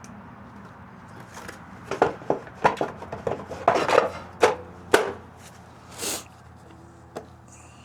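A quick run of sharp clicks and knocks from hand tools and small parts being handled while working on a mower, then one short hiss about six seconds in.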